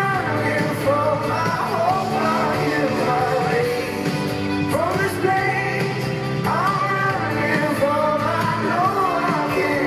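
Live concert pop music: a male singer's gliding melody over steady band accompaniment.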